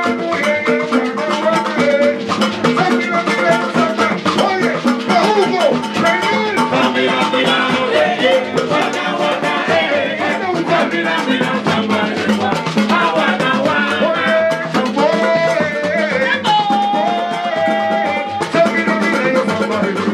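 Afro-Cuban rumba music: a steady, busy rhythm of percussion with a sung melody over it.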